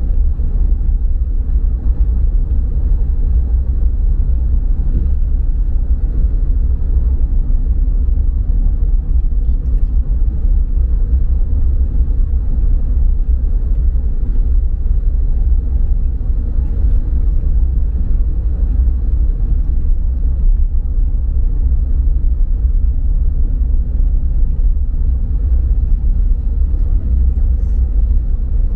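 Steady low rumble of a car driving along a paved highway, heard from inside the cabin: engine and tyre noise on the road.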